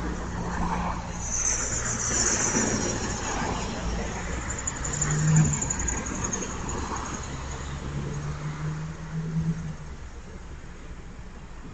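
Several cars and vans passing on a residential street, with engine hum and tyre noise. The traffic noise eases after about ten seconds as the street clears.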